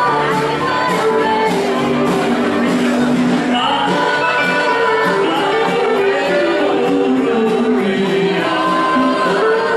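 Live band music with a woman singing lead over electric bass and drums.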